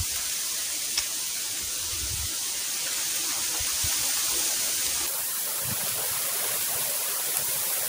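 Steady, even outdoor background hiss, strongest in the high register, with a faint click about a second in and a few soft low knocks.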